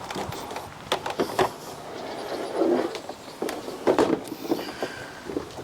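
Hydroponic channels being pushed down and seated into the fittings of the salad table's upright frame: a series of irregular knocks and clicks.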